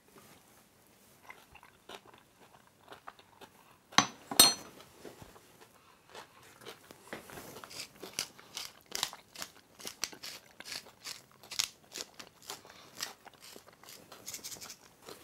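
Hand-twisted spice mill grinding over a salad bowl: a long run of quick crunching clicks from about six seconds in. Before that, faint chewing and two sharp clicks about four seconds in.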